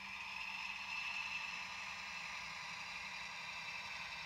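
Märklin model diesel locomotive running on the track: a steady whir of its motor and running gear, slightly louder in the first second.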